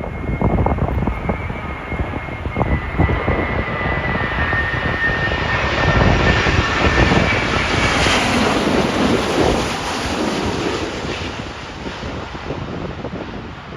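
Jet airliner on final approach passing low overhead: a high engine whine, sinking slightly in pitch, and rushing noise swell to a peak about halfway through and then ease off. Gusty wind buffets the microphone.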